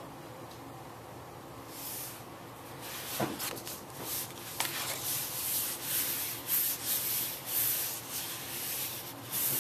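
A hand rubbing the back of a sheet of paper laid on a gel printing plate, burnishing it to pick up the acrylic print. It is a run of irregular dry rubbing strokes starting about two seconds in, roughly one or two a second.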